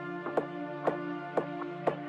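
Background music: sustained chords over a steady beat of about two strokes a second.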